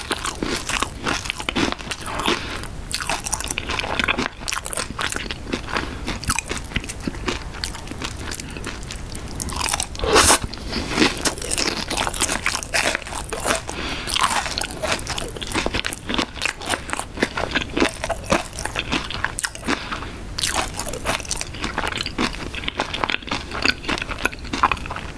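A person chewing a crispy raspberry cream cheese pie, the crust crunching and crackling in the mouth without a break, with one louder crunch about ten seconds in.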